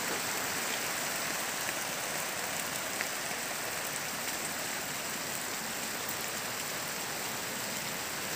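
Steady rain falling on a garden's grass and leaves, an even hiss with a few faint single drop ticks.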